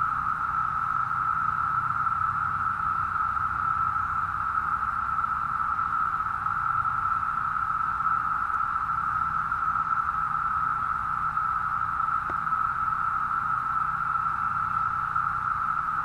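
Chorus of Brood V periodical cicadas: a steady, unbroken drone held at one pitch.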